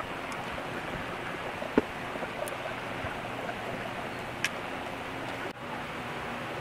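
Steady hiss-like background noise with a sharp click of the plastic speedometer gauge housing being handled during disassembly, a little under two seconds in, and a fainter click later.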